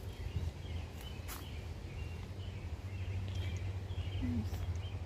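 Faint birds chirping and twittering in woodland over a steady low rumble, with a few faint clicks and a short falling squeak about four seconds in.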